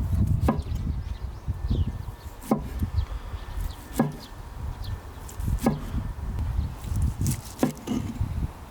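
Knife chopping on a wooden cutting board, single strokes every second or two, over a low rumbling background.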